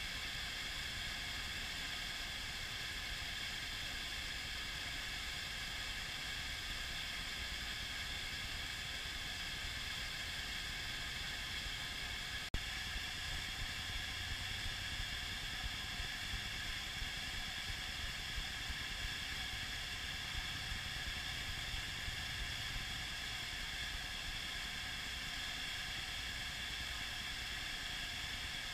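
Steady rush of whitewater churning through a large standing wave, heard as an even hiss. A single sharp click about twelve seconds in.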